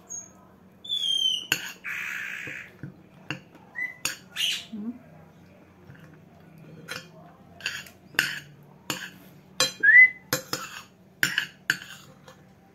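A pet bird giving short, sharp whistled calls that copy a person's whistle, some falling and some rising. Between them a spoon clinks and scrapes again and again on a plate.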